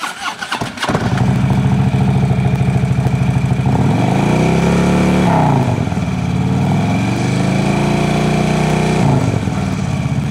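Harley-Davidson touring motorcycle's V-twin engine cranks briefly and starts about a second in, then idles. It is revved up twice with first gear engaged and the clutch pulled in, pitch rising, holding and falling back to idle each time; with the clutch in, the revs send no power to the rear wheel, so the bike does not move.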